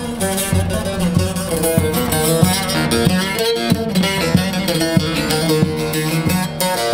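Long-necked bağlama with a carved mulberry bowl played solo: a fast run of plucked notes in a Turkish folk melody.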